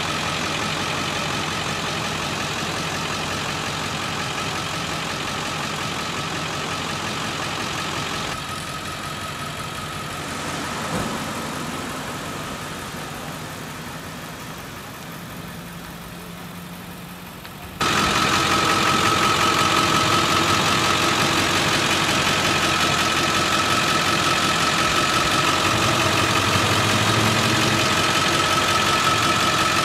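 A motor vehicle engine running steadily at idle. The sound fades slowly through the middle, then turns suddenly louder about 18 seconds in, with a thin steady whine on top.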